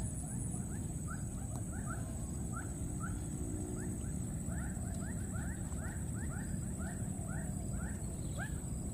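Rapid, short squeaky animal chirps, two or three a second, over a steady low rumble and a faint high-pitched whine.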